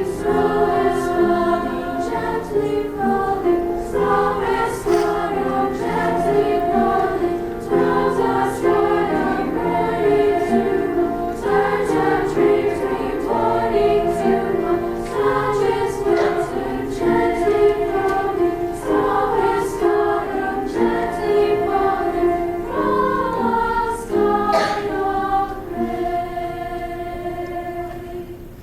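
Women's choir singing, the voices moving together through changing notes, then settling on a held chord that fades near the end.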